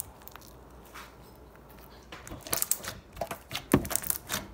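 Slime being squished and poked by hand, giving a quick irregular run of sticky clicks and pops from about halfway through.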